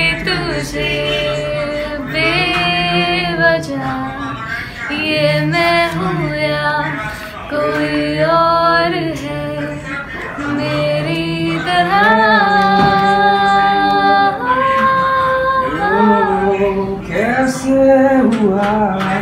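A woman singing a melody, with several long held notes in the second half.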